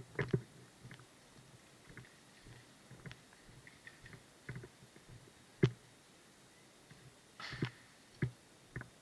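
Scattered sharp clicks and knocks at irregular intervals, the loudest a single crack a little past halfway, with a brief rustle near the end.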